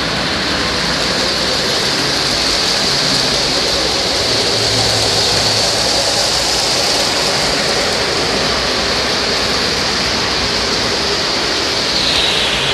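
O-gauge three-rail model trains running on the layout's track: a steady rolling rumble and motor whir that goes on without a break.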